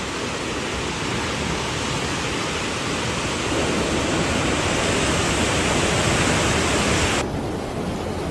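A steady, loud rush of water, like floodwater or a downpour. At about seven seconds the hiss turns abruptly duller.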